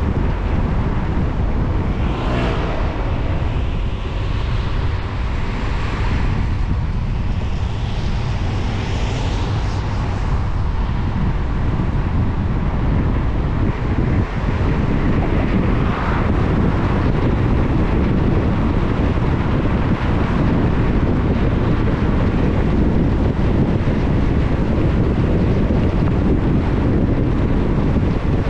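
Car driving on a wet road in the rain: steady low rumble of road and wind noise. A few brief swooshes rise above it between about 2 and 10 seconds in, and again around 16 seconds.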